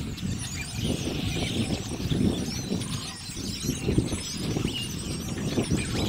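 A huge flock of blackbirds calling: a dense chatter of many overlapping high chirps, over a low rushing noise that swells and fades.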